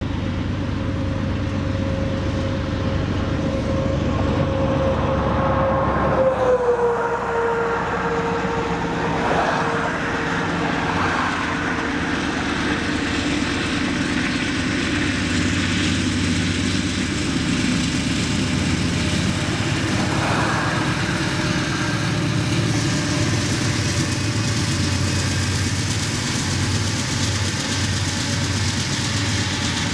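GE C44-9W diesel locomotives working under power as they accelerate a grain train: a steady low engine drone with a held whine that dips slightly in pitch about six seconds in. Toward the end, the covered hopper cars roll past.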